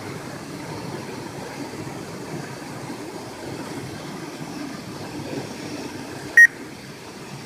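Steady rushing of a mountain stream pouring over rocks, with one short, loud electronic beep near the end.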